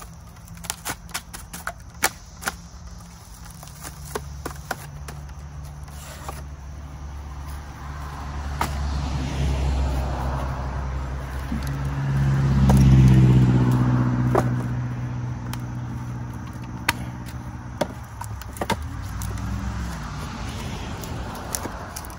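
Split firewood logs knocking and clattering as they are pulled from a stacked pile and set into a wooden bundling rack. Under the knocks, a passing vehicle's engine hum swells, is loudest about halfway through, and fades away.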